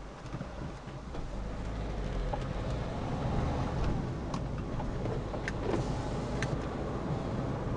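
A car's engine and tyre noise heard from inside the cabin, growing louder as the car pulls away from a standstill and picks up speed. A few light ticks sound partway through.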